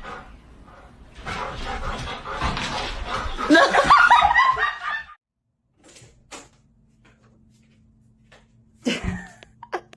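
Laughter for about four seconds, loudest near the middle, then a faint steady hum and a single sharp knock near the end.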